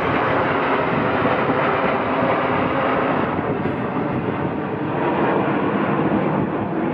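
Steady jet engine noise from Canadair CT-114 Tutor jets in flight.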